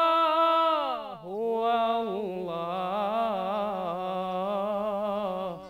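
Solo male munshid singing Egyptian religious inshad unaccompanied. A high note is held, then glides down to a lower pitch about a second in. An ornamented, wavering line follows and ends just before the close.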